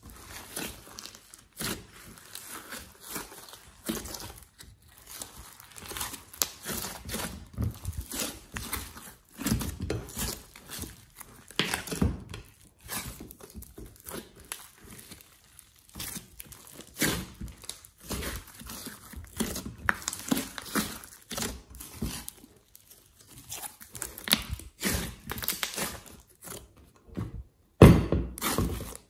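Hands kneading and squeezing a large mass of slime, giving irregular wet squishing and crackling pops with no steady rhythm. Near the end comes one heavier thud as the slime is pulled out of its glass dish.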